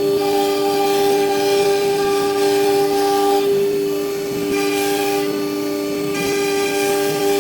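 ELECNC1325 CNC router spindle running with a steady high whine, while fainter higher tones and hiss come and go every second or two as the machine works.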